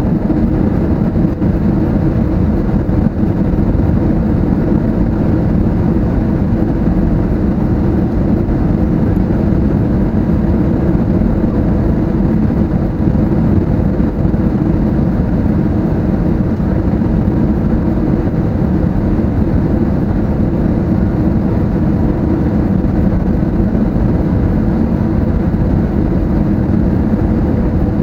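Steady in-flight cabin noise of an Airbus A320neo on approach: an even rumble of engines and rushing air, with no change in level.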